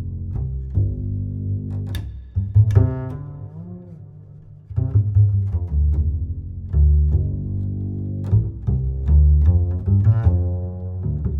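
Music with a heavy bass line of deep, plucked-sounding notes and higher melodic notes over it, dipping in loudness about four seconds in.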